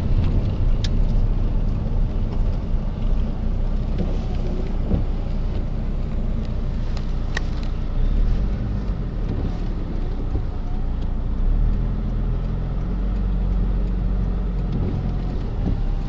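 Steady road and engine rumble heard inside a moving car's cabin.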